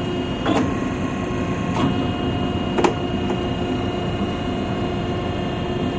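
Hydraulic rescue boat davit slewing inboard under remote control: a steady mechanical hum. Three faint clicks come in the first three seconds.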